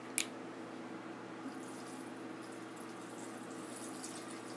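Water running quietly: bottled water being poured into a glass drink-dispenser jar whose plastic spigot has been left open, so water also trickles out of the spigot onto the table. A short click comes just after the start.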